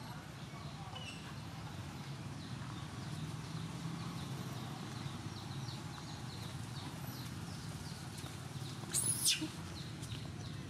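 A short, sharp, high-pitched squeal from a young long-tailed macaque about nine seconds in, the loudest sound here. Under it run a steady low hum and a fast series of faint high chirps, about three a second.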